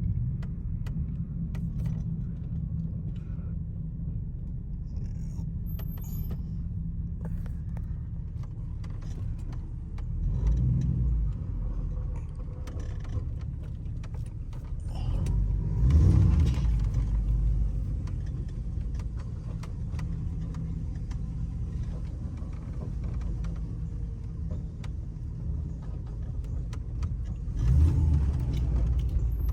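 LS-swapped 1985 Monte Carlo SS's 5.3-litre V8 running, heard from inside the cabin: a steady low rumble that swells louder three times, most strongly about sixteen seconds in.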